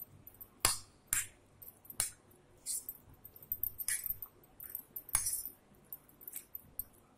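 Metal fork clinking and scraping against a ceramic plate at irregular intervals, about once a second, as raw chicken pieces are stirred into a spice marinade.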